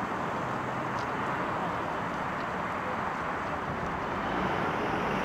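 Steady outdoor urban background noise: an even rushing hum like distant traffic, rising slightly near the end.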